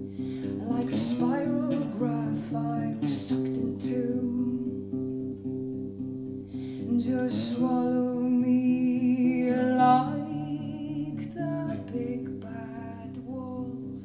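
A woman singing over an electric guitar picking a repeating pattern of notes. Her voice swells to a held note with vibrato about eight to ten seconds in.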